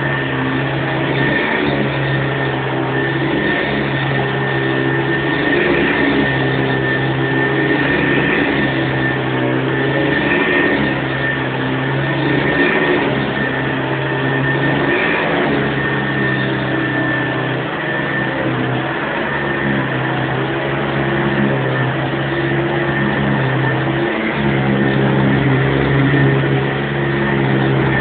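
1976 Hoover Convertible upright vacuum cleaner running, with a steady high motor whine over a low hum that shifts and breaks every couple of seconds as it is worked back and forth over a rug.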